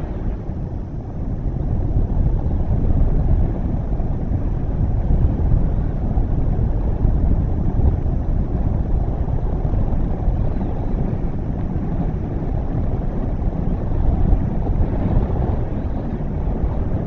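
Wind buffeting an outdoor camera microphone: a steady low rumble that rises and falls in strength.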